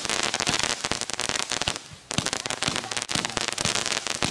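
Consumer ground fountain firework spraying sparks, with dense rapid crackling that dips briefly about two seconds in.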